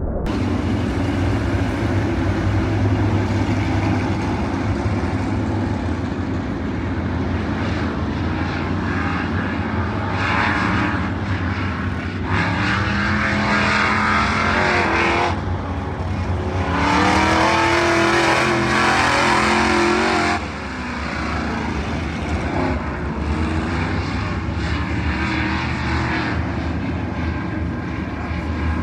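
A pack of Midwest Modified dirt-track race cars running their V8 engines at racing speed. Near the middle it gets louder twice as cars pass close, with the engine pitch gliding.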